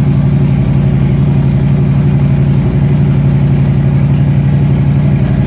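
Bagger motorcycle engine idling steadily, loud and even, running just after being started to check the rewired controls and turn signals.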